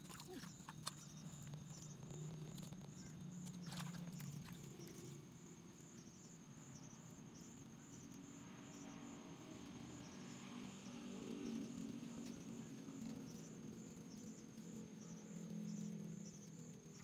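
Faint, steady high-pitched insect trilling that pulses at an even rate, over a low hum, with a few soft rustles of plants being handled near the start and about four seconds in.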